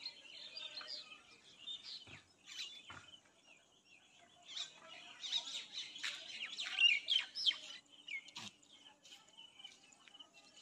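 Small birds chirping and twittering in many quick, overlapping calls, busiest around the middle, with a few short clicks among them.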